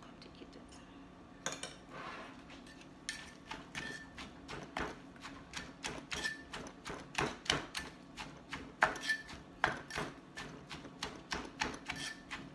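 Pestle knocking repeatedly in a mortar as green papaya salad (som tam) is pounded and mixed, in a quick, uneven rhythm of about two to three strikes a second. It starts about a second and a half in.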